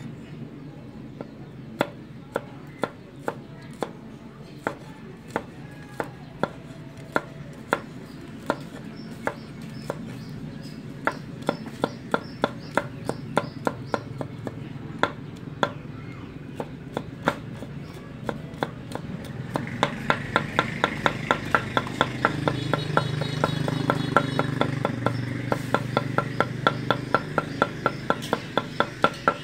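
Cleaver chopping garlic cloves on a wooden chopping board: scattered single knocks at first, then more often, turning about two-thirds of the way in into fast, even chopping of about three to four strokes a second as the garlic is minced.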